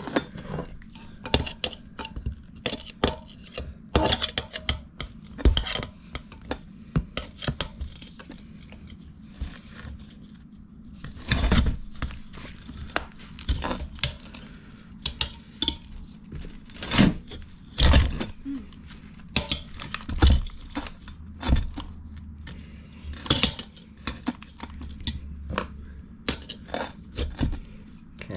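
Metal tire spoons clinking, knocking and scraping against a dirt bike wheel rim as the tire is levered off, in irregular sharp clicks with a few heavier knocks.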